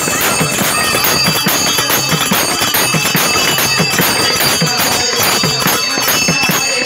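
Devotional kirtan music: hand cymbals struck in a steady beat and ringing on, over a drum beating about twice a second.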